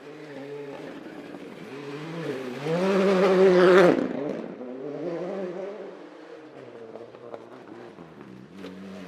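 Rally car engine revving up as the car approaches, loudest just under four seconds in, then dropping in pitch and fading as it goes past and away. Near the end, engine sound builds again.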